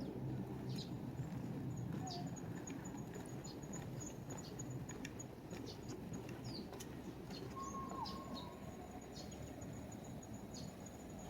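A steady, high, pulsing insect trill runs under scattered short bird chirps, over a low, even city rumble.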